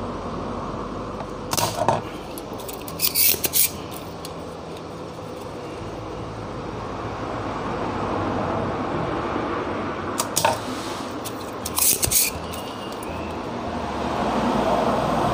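Spring-loaded desoldering pump (solder sucker) clicking sharply as its plunger is cocked and released to suck molten solder off the amplifier IC's pins. The clicks come in four short groups: two within the first few seconds and two more about ten and twelve seconds in.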